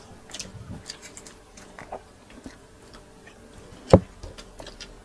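Close-up eating sounds: mouth clicks and chewing as grilled chicken and rice are eaten by hand. There is one sharp knock about four seconds in.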